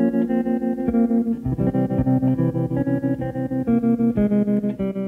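Background music: an instrumental passage of plucked electric guitar with an effects-coloured tone over a bass line, a steady run of notes with no singing.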